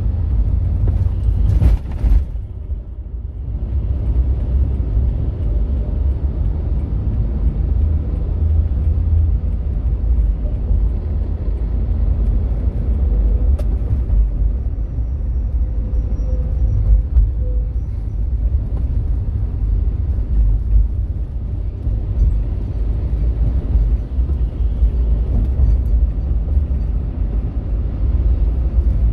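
Steady low rumble of a car driving at speed on a highway: engine and tyre noise. A brief knock comes just under two seconds in, and the rumble dips for a moment after it.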